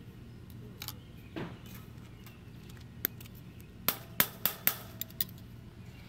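Needle-nose pliers and steel tie wire clicking and clinking against a rebar mesh crossing as the wire is tied. There is one sharp click about halfway through, then a quick run of about five more near the end.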